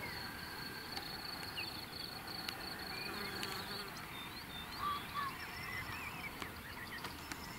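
Insects in summer grass: a steady high-pitched trill that fades about halfway through, with faint short chirps scattered over a soft background hiss.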